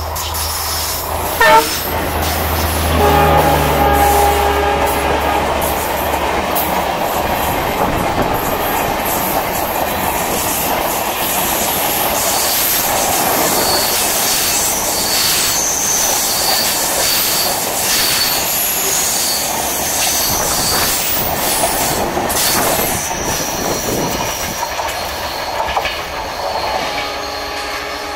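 WDM3D ALCO diesel locomotive passing close by: its engine's low hum and a horn blast a few seconds in. A long rake of passenger coaches follows, rolling past with clickety-clack over the rail joints and high wheel squeal.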